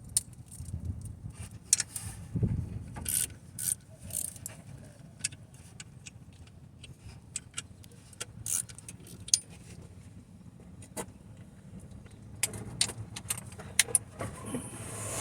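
Scattered metallic clicks, taps and clinks of hand tools and bolts against the alternator and its mounting bracket in the engine bay, irregular and of uneven loudness.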